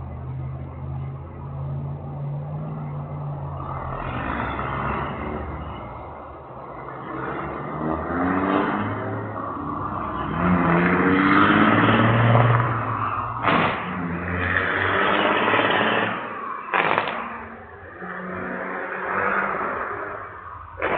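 Diesel semi truck engine running loudly, its pitch rising and falling as it revs, with two sharp cracks about two-thirds of the way through.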